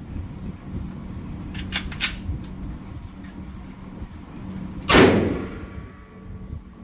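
A single loud handgun shot about five seconds in, its echo dying away over about a second, with a few fainter, sharper shot cracks a couple of seconds earlier.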